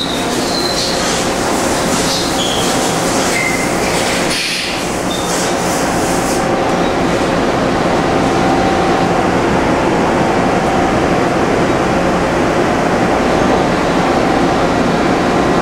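1986 Okuma MC-50H horizontal machining center running under power, giving off a loud, steady mechanical whir and hum with a few faint steady tones. A few brief high squeaks come in the first few seconds.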